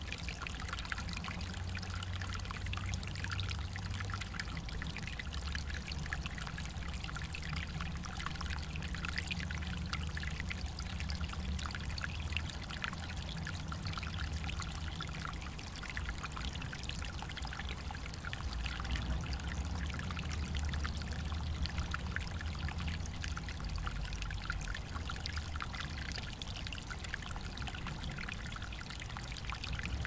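Running water splashing steadily, with a fine spatter of droplets over a low rumble underneath.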